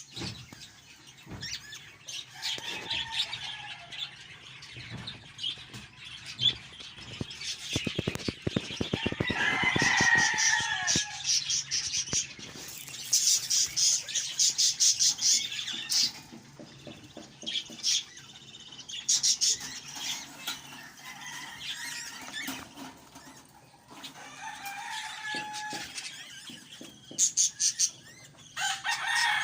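Budgerigars chirping and chattering in their cages, in rapid runs of short high calls, with bursts of wing flapping.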